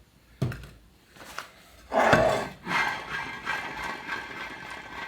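Gearbox parts and tools handled on a workbench during a rebuild: two light clicks, a louder knock about two seconds in, then a stretch of rubbing and scraping.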